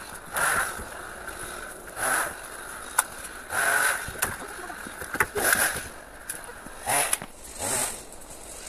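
Long dry deadwood poles being handled and loaded onto a trailer load: a series of short rustling scrapes about every one to two seconds, with a few sharp wooden knocks between them.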